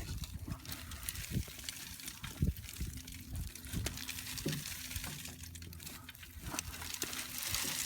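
Irregular rustles, scrapes and light knocks as a hand gropes through packed crop debris in the rock trap of a John Deere 9500 combine, feeling for stones. A faint steady low hum runs underneath, and a hiss swells near the end.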